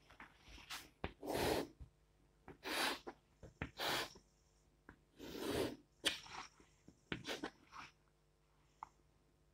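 Chalk drawing straight lines on a blackboard: four short scratchy strokes about a second apart, with small clicks as the chalk touches and leaves the board between them.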